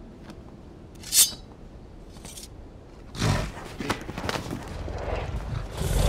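Sound effects without music: a short sharp swish about a second in, then a run of scuffs and heavy thuds, the loudest near the end as a bull's hooves step on the arena sand.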